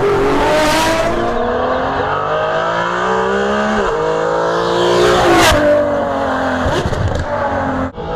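Ferrari 599 GTO's V12 engine accelerating hard, its pitch climbing through the revs, dropping sharply on an upshift about four seconds in, then climbing again before it eases off. Near the end the sound briefly cuts out.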